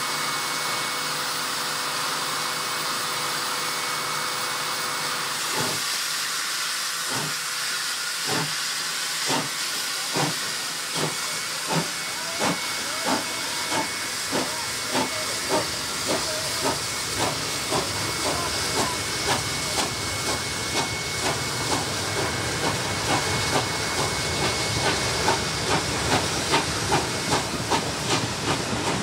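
NSW 59 class steam locomotive 5917 starting away from a stand under a continuous hiss of steam. About six seconds in its exhaust beats begin, slow and widely spaced, and they quicken steadily to about two a second as the train gathers speed.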